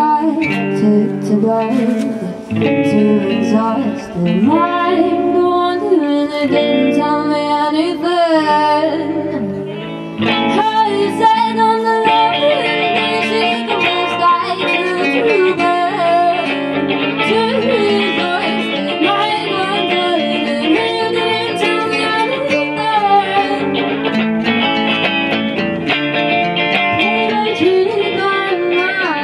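Live acoustic guitar strummed with singing over it. Just after ten seconds in, a brief dip gives way to a fuller, louder passage.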